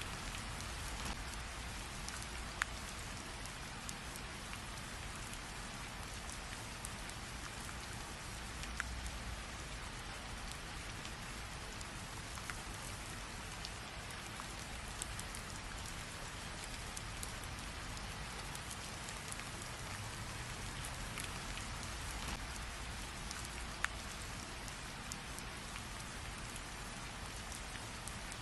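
Steady rain falling, with a constant patter and occasional distinct drops landing close by.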